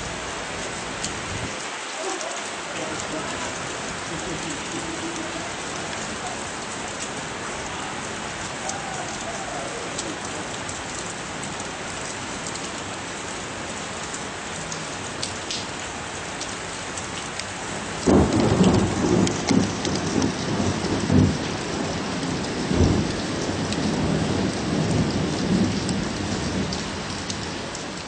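Heavy rain falling steadily. About eighteen seconds in, a louder, uneven low rumbling sets in over the rain and goes on in surges.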